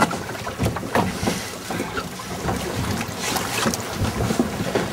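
Sea water splashing and sloshing irregularly against the side of a small boat, with wind buffeting the microphone.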